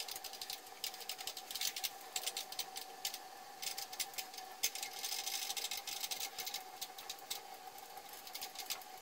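A small machine running with a steady whine, overlaid by rapid, irregular clicking and rattling.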